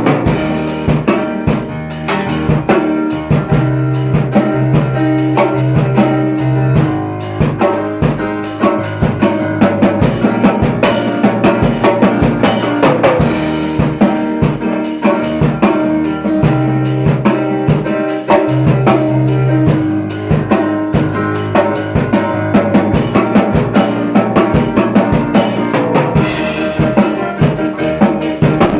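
Music with a driving drum kit, bass and pitched instruments playing a dense, steady beat.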